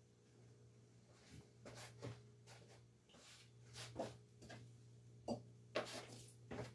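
Near silence: room tone with a faint steady low hum and a few soft, scattered taps.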